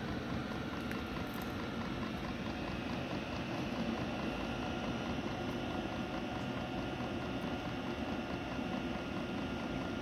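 8 kW air heater running steadily: an even rushing of burner and blower with a faint steady whine from the fan.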